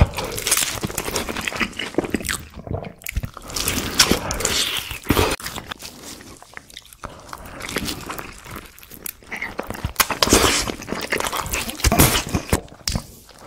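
Close-miked eating of sauced fried chicken: crunchy bites through the coating, then chewing, in irregular bouts with a quieter spell of chewing in the middle.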